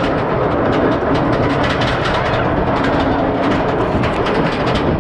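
Roller coaster train climbing a chain lift hill: a steady mechanical clatter with a rapid run of clicks from the lift chain and anti-rollback ratchet.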